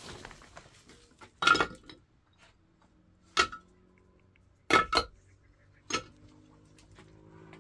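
Hollow fired-clay bricks clinking as they are set down against one another along the top of a wall: five sharp knocks with a short ringing tail, the loudest about a second and a half in and two in quick succession near the middle.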